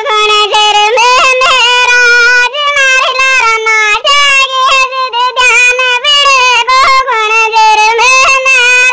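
A single high-pitched voice singing a melody in long, wavering phrases with short breaks between them.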